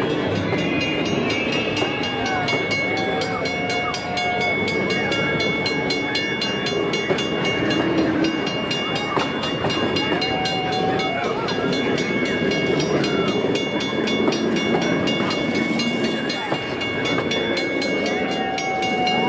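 Passenger cars of a train rolling steadily past a level crossing with rumble and rattle, while the crossing-signal bell rings rapidly and without a break.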